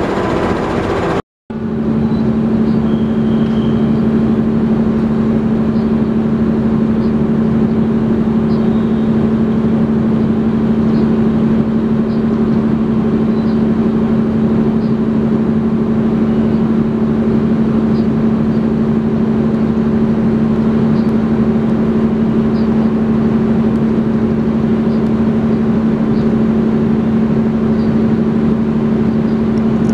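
A passing train is heard for about a second, then cuts off suddenly. After that a diesel-hauled passenger train's engine hums steadily and unchanging at one low pitch.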